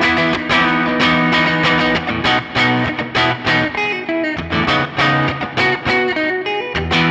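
Telecaster-style electric guitar picking chords in a quick, steady rhythm, moving from an E5 shape through B to C#7sus4 around the seventh fret.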